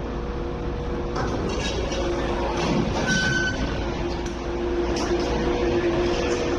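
MTR Airport Express train standing at the platform with a steady electrical hum. From about a second in comes a rush of noise as the train doors and platform screen doors slide open, with a short beep partway through.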